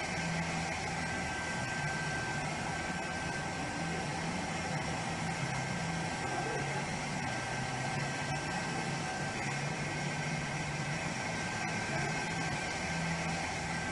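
A motor running steadily: a low hum that shifts slightly in pitch, with a constant high whine and an even hiss over it.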